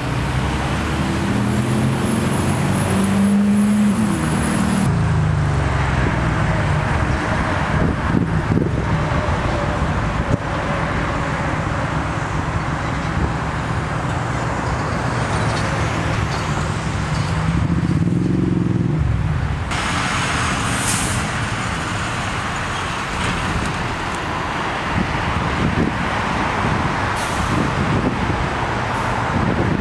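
Steady road traffic noise from a busy road, with vehicles passing. A heavier vehicle's engine swells and fades a few seconds in, and again about eighteen seconds in.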